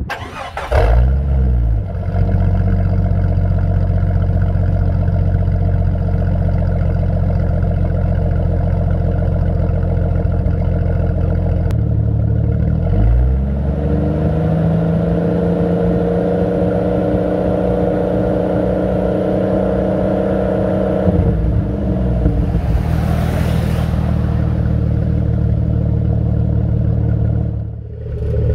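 A 1999 Jeep Cherokee XJ's 4.0L straight-six, straight-piped with its muffler deleted, is warm-started at the exhaust tip. It catches about half a second in and settles into a steady idle. About halfway through the revs rise and are held higher for several seconds, then drop back to idle.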